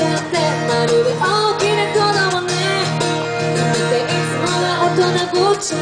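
A woman singing into a microphone, accompanied by a strummed acoustic guitar, in a live street performance.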